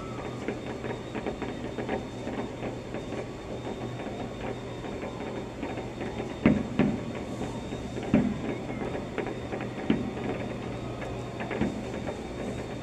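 Fireworks heard through an office window glass: a dense run of faint crackles, then from about halfway in four muffled booms about a second and a half to two seconds apart, over a steady low hum.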